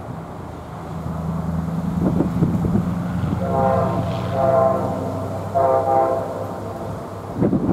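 Diesel locomotive's air horn sounding three blasts, the first two close together, over the steady running of the locomotive's diesel engine.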